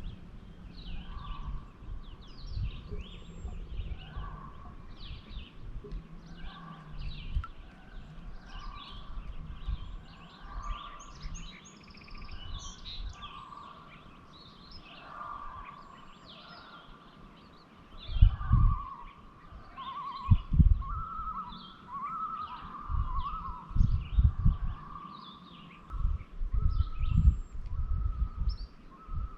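Birds chirping and singing from the pond shore: many short high chirps throughout, and a warbling trilled song that grows stronger in the second half. Several short low rumbles or bumps break in from about two-thirds of the way through and are the loudest sounds.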